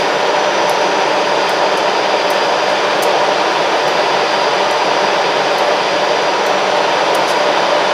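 CC 203 diesel-electric locomotive standing still with its engine idling, a loud, steady, fan-like rushing hum with a faint high whine over it.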